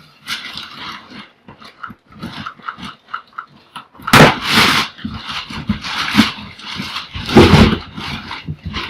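A dog whimpering and growling in short high whines. Loud rustling and thumping bursts come twice, once about four seconds in and again near the end.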